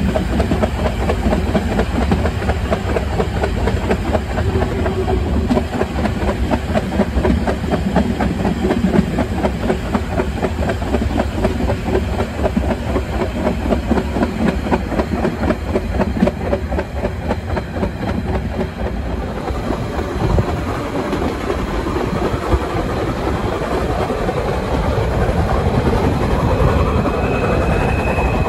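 Harz metre-gauge steam train under way, heard from a carriage near the front: rapid rhythmic chuffing from the locomotive and clatter of wheels over the rails, with steam hiss. A brief high steady tone comes in near the end.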